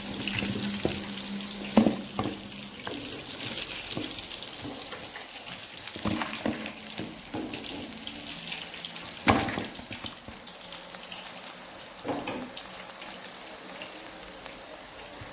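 Chicken pieces sizzling as they fry in oil in a pan, with a steady hiss and a few sharp knocks of a utensil against the pan, about two, six, nine and twelve seconds in, as the fried pieces are lifted out.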